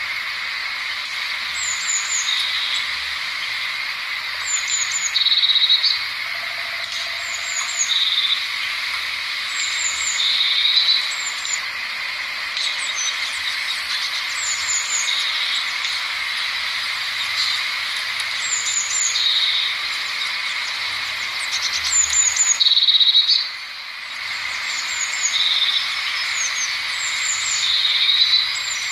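A small songbird repeating short, high double chirps every one to two seconds, with louder chattering phrases now and then, over a steady high-pitched background chorus.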